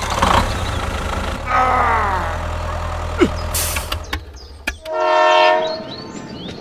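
A train horn sounds one steady blast of about a second, about five seconds in. It is the loudest sound. Before it there is a steady low hum with some falling, gliding tones, and a few sharp clicks just before the horn.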